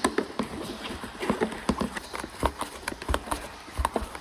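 Irregular clicks and knocks of car door parts being handled and pressed into place, as the door control module is clicked back into its mount, with a few heavier knocks in the second half.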